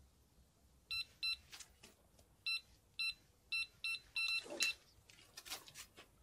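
Electronic carp bite alarm sounding an irregular run of short, same-pitched beeps as line is drawn through it: a fish taking the bait. A few brief noises follow near the end.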